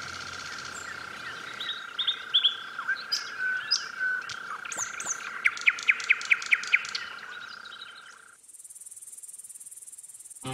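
Woodland ambience of assorted bird calls and chirps over a steady high-pitched whine, with a fast run of sharp, loud chirps, about six a second, a little past the middle. After about eight seconds the birds and the whine stop and a thin, high, steady insect-like trill carries on alone.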